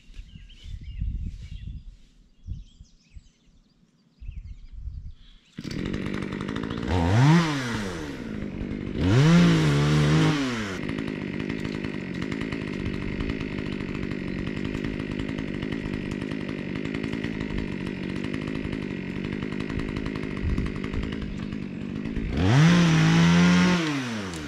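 Two-stroke petrol chainsaw starting about five seconds in and then idling. The throttle is blipped so the engine revs up and drops back, twice soon after it starts and once more near the end.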